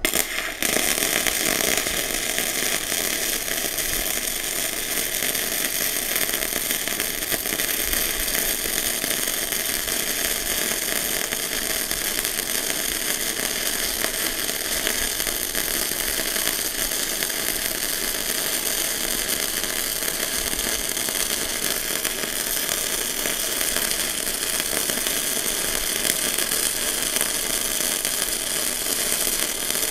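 MIG welding arc from a Sasuke MIG welder laying one continuous bead on thin steel box tubing: the arc strikes at the very start and runs without a break as a steady crackling hiss.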